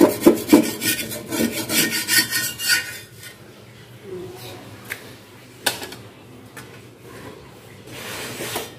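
Metal spatula scraping under a thin flour crepe on a black griddle, in quick rasping strokes, to work it loose. After about three seconds the scraping stops, leaving it much quieter with a few isolated clicks.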